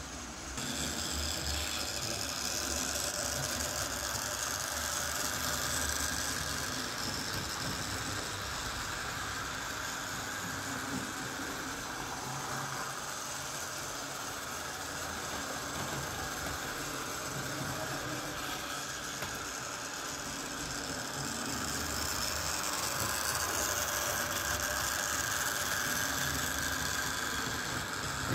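Tri-ang Hornby OO gauge model train running around the track: a small electric motor whirring through its gears, with the wheels running on the rails. It starts less than a second in and rises and falls in level.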